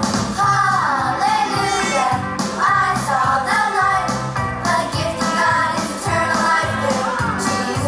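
Recorded upbeat gospel song playing, with a bending melody line over a steady beat.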